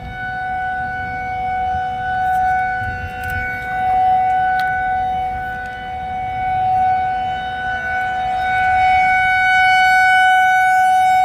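Outdoor tornado warning siren wailing on one steady high tone, its loudness swelling and fading every few seconds as the rotating siren sweeps past.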